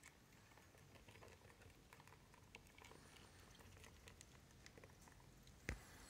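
Faint, scattered pattering and ticking of a lesser white-toothed shrew's tiny feet and claws scurrying over the floor of a plastic tub, with one sharper knock near the end.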